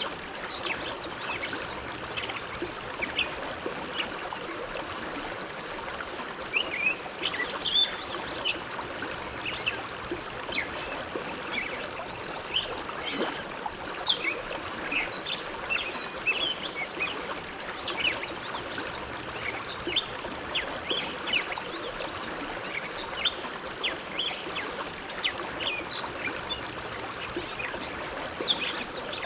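River water flowing steadily, a continuous rush scattered with many small splashes and gurgles.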